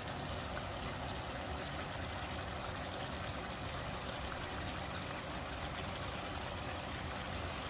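Chicken and pineapple sauce bubbling and simmering steadily in a pan over high heat as it reduces.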